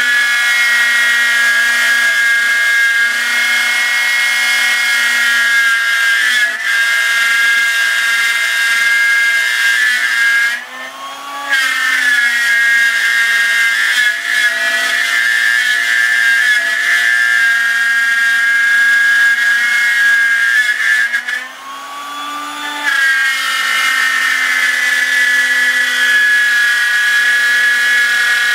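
Performax plunge router mounted in a router table, its 1/4" solid carbide downcut spiral bit cutting a circle through 3/4" MDF: a loud, steady high-pitched motor whine with cutting noise. Twice, about ten and twenty-one seconds in, the sound briefly drops and the pitch shifts before the cut carries on.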